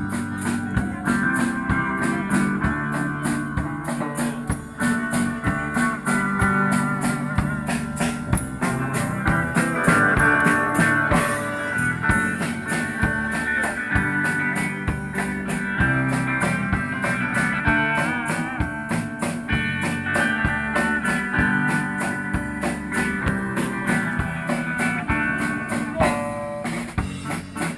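A street band playing live on amplified electric guitars and a drum kit, with a steady beat throughout.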